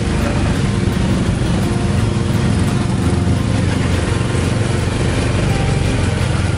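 Tuk tuk's small engine running steadily as it rides in traffic, heard from the open passenger cab, mixed with road and wind noise.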